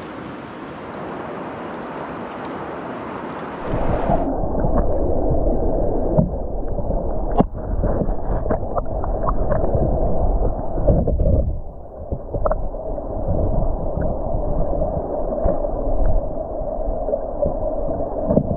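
A steady rush of river water, then from about four seconds in the muffled, gurgling sound of water heard with the camera submerged, with scattered knocks and clicks as a fish is handled in a landing net.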